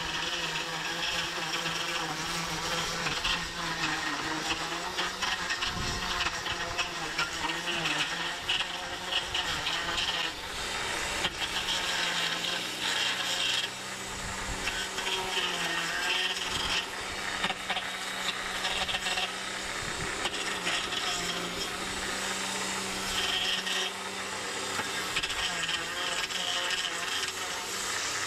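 Toro 60-volt battery-powered edger attachment running steadily, its electric motor whining as the spinning blade cuts and scrapes through grass and dirt along the edges of patio pavers.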